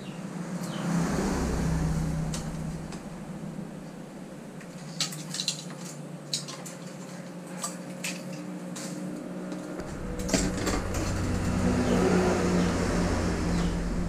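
Light metallic clicks and clinks of thin refrigerator capillary tubing being drawn out and uncoiled by hand. Under them a rushing noise swells twice, once about a second in and again near the end.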